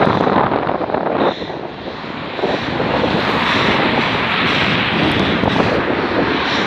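Airbus A350-900 jet engines running as the airliner lands, mixed with wind buffeting the microphone.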